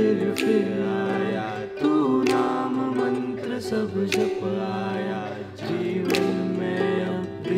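A man singing while strumming a ukulele, with sharp strums every second or so under the sung melody.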